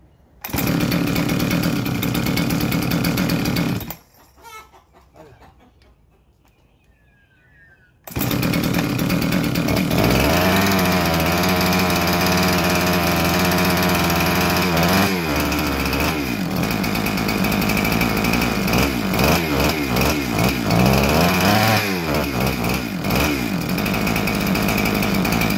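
Husqvarna 372XP big-bore two-stroke chainsaw engine starting, running for about three seconds and cutting out, then restarted about eight seconds in and left running, idling steadily and then revved up and down several times. It is burning off the pre-lube oil left in the cylinder from reassembly, running smoky.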